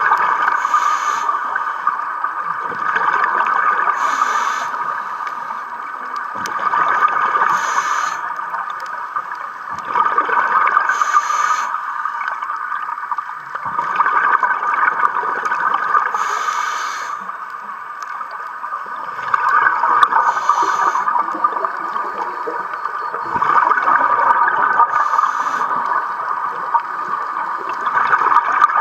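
Scuba diver breathing underwater through a regulator: breaths and gurgling exhaled bubbles in a repeating cycle roughly every four seconds.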